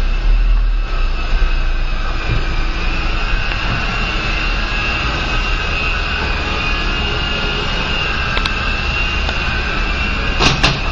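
Syma S006 Alloy Shark 3-channel RC helicopter in flight: its small electric motors and rotors give a steady high whine over a whirring rush. A couple of sharp clicks near the end.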